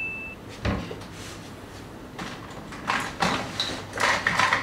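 A chime sound effect fades out at the very start. About half a second later comes a single knock, then scattered clicks and clatters of small hair tools and pins being rummaged through.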